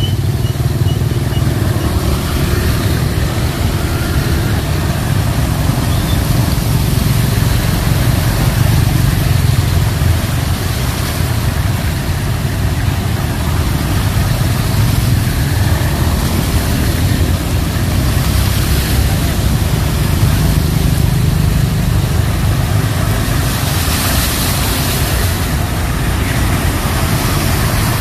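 A motor vehicle running steadily, with a continuous low rumble and no clear changes.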